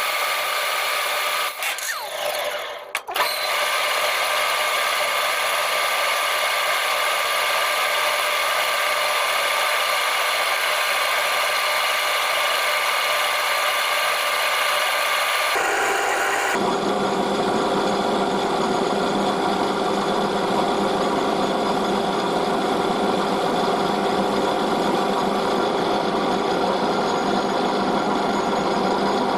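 Metal-turning lathe running steadily through a cut, a whining motor and gear drive with several steady tones. About two seconds in the sound briefly dips, and about 16 seconds in its pitch shifts and a lower hum joins.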